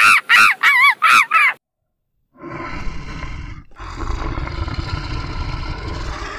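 Baboon calls: a quick run of short, high, arching calls, about three a second, that stops about one and a half seconds in. After a brief gap, a brown bear growls, low and rough.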